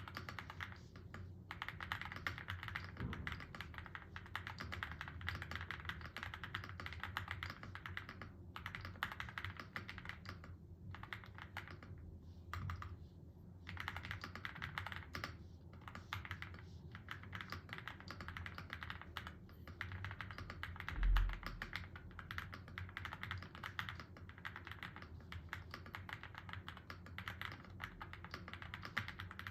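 Steady, fast typing on a QwertyKeys QK75N mechanical keyboard with pre-lubed Domikey Choco Donut switches on an FR4 flex-cut plate and JKDK Carpenter keycaps, with a few short pauses in the keystrokes. A single low thump stands out about two-thirds of the way through.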